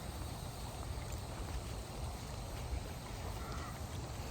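Steady rush of flowing water with a low rumble underneath.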